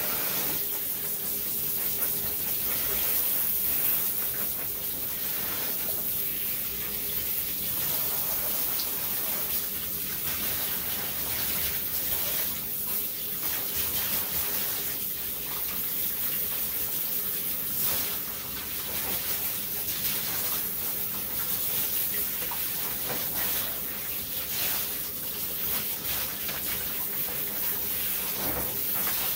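Tap water running steadily into a tub, its rush swelling and easing every second or two, with a faint steady hum beneath.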